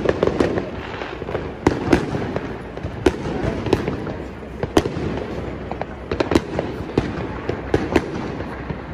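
Fireworks going off in the sky above the town: many sharp, irregular bangs and crackles over a continuous rumble of more distant bursts.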